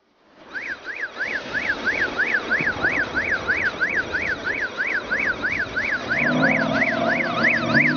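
Electronic siren in a fast yelp, its pitch rising and falling about three and a half times a second, starting about half a second in over a steady noise. A lower steady tone joins about six seconds in.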